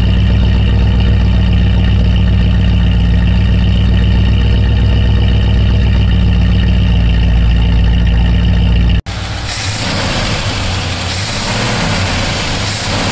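1973 Ford F100's V8, warmed up, idling steadily through its exhaust, loud and even. About nine seconds in the sound cuts to the open engine bay, where the engine runs under a hissing layer with its speed rising and falling slightly.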